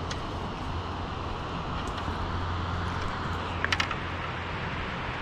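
Steady rush of river water pouring through a dam's spillway, with a low hum underneath. A quick run of small clicks sounds about three and a half seconds in.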